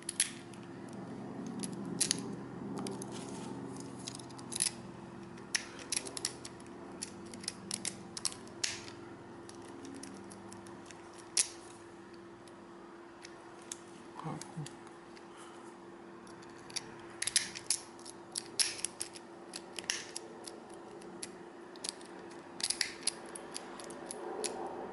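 Irregular small metallic clicks and scrapes of a Bogota rake being worked in a padlock's keyway, the rake too big for the lock's small core.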